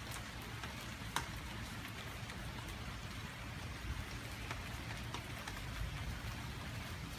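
Steady rain, with scattered single drops tapping close by; one sharper tap about a second in.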